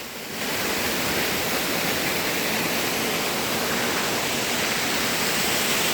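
Waterfall rushing: a steady, even roar of falling water that swells up about a third of a second in and then holds level.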